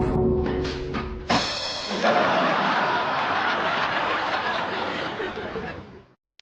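Short meme sound-effect clips played back to back: a musical sting with steady tones, then a second brief one, then a long noisy hiss-like effect that cuts off suddenly near the end.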